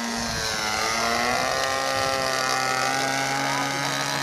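Engine of a radio-controlled Piper Cub-style scale model airplane running in flight overhead, a steady buzzing note that grows louder and dips slightly in pitch early on, then holds.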